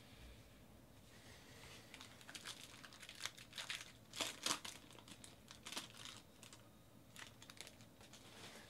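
Foil trading-card pack wrapper being torn open and crinkled by hand: a faint run of irregular crackles, densest about halfway through, with a few more later.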